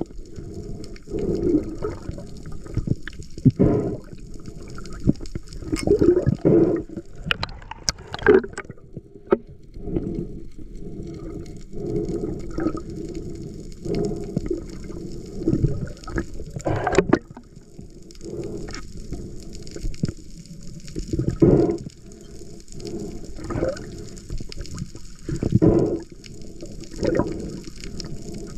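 Muffled underwater sound picked up by a diver's camera: water moving and bubbling in irregular surges every second or two, over a faint steady hiss.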